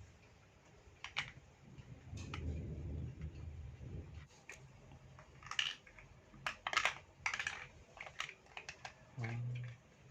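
Small plastic building blocks clicking and clattering as they are handled and pressed together. Irregular clicks, busiest a little past halfway.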